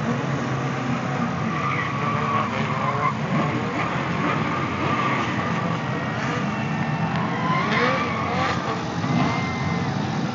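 Several drift cars driven in a pack, their engines revving up and down at once, with tyre squeal as they slide.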